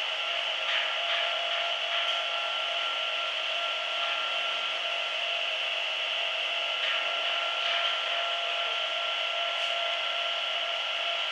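Hanta Systems Duster 300 rug-beating machine running with an area rug in it, knocking the dust out of the pile: a steady scraping, rubbing noise with a faint steady whine beneath it and a few light ticks.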